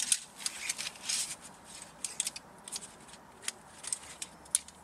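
Cut lengths of 12 mm aluminium tube clinking against one another as they are gathered and bundled in the hands: a run of irregular light metallic clinks, densest near the start and thinning out after.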